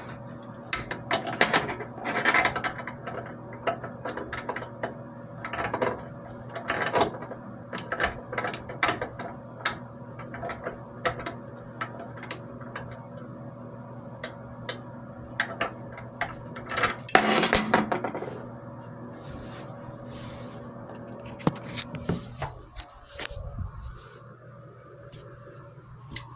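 Repeated mechanical clicking and ratcheting from tools being worked, with a louder scraping rush about two-thirds of the way in, over a steady hum that stops a few seconds before the end.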